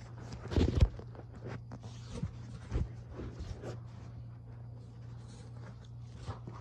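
Handling noise: a few soft knocks and rustles of things being moved about, the loudest about a second in, over a steady low hum.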